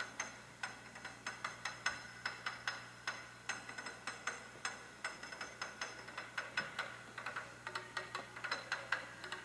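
Oval moving-coil bone conduction vibrator from 2018 Vocalskull glasses, pressed onto a plastic container, playing a bass test track. The drum beats come through the container faintly and rhythmically, a few a second, and sound deep rather than tinny.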